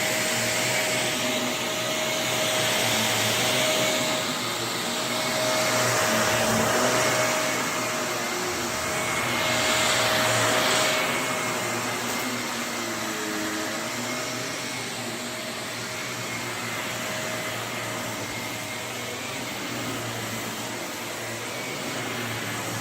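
Shark Navigator Lift-Away NV351 bagless upright vacuum running: a steady motor whine over a rush of air that swells and eases several times, a little lower and steadier in the second half.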